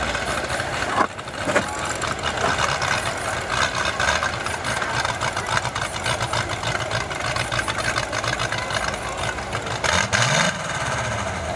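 Several demolition derby cars' engines running at idle in a steady, dense rumble, with two sharp knocks about a second in. Near the end one engine revs briefly, its pitch rising.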